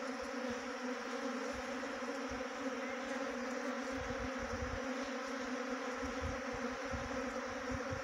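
Swarm of honey bees buzzing: a steady, dense hum.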